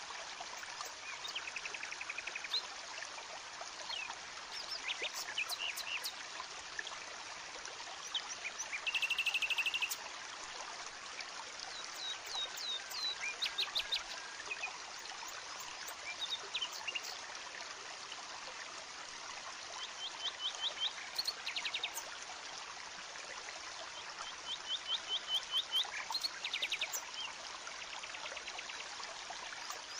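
Birds calling in short repeated chirp series, with a louder buzzy trill about nine seconds in, over the steady rush of a stream.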